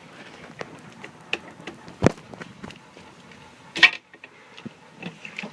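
A few irregular sharp knocks and clicks over a low background, the loudest about two seconds in and again just before four seconds in.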